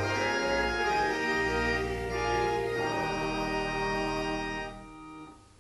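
Church organ playing the last bars of a hymn, moving through a few sustained chords and ending on a held chord that is released about five seconds in.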